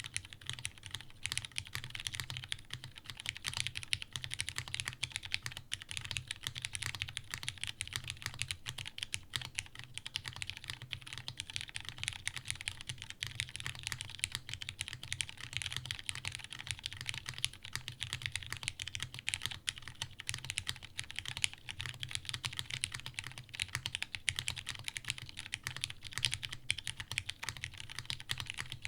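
Fast, continuous typing on a custom mechanical keyboard, the daji Seis Cero with plateless tadpole mount, lubed Cherry Hyperglide Brown tactile switches and GMK keycaps. It makes a dense, unbroken stream of key clacks with a deep low thock under each press.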